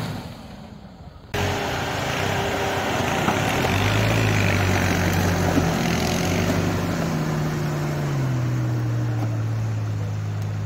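Suzuki Vitara V6 engine pulling steadily under load as the 4x4 climbs through snow, with the hiss and crunch of tyres working in the snow; the engine note drops a step about eight seconds in.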